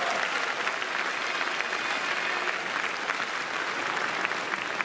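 Crowd applauding, a dense, steady patter of many hands clapping at once.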